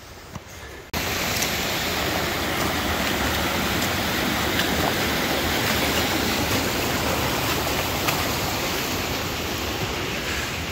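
Steady rush of flowing water, as of a stream or waterfall, starting abruptly about a second in.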